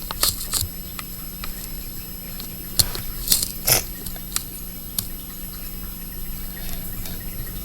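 Heavy rain with irregular drips and taps of water, a cluster of louder ones about three to four seconds in, over a steady low hum.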